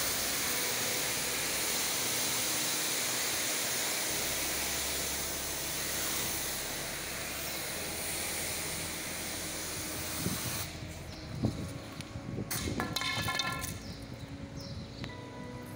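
Pressure washer jet hissing steadily as it sprays water onto paving. About ten seconds in, the spray stops and a few knocks and rattles follow.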